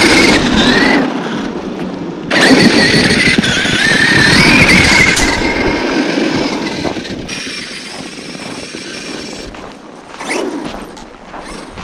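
Traxxas X-Maxx RC monster truck's brushless electric motor whining under throttle, its pitch rising and falling in two loud bursts in the first half, then fading away as the truck drives off.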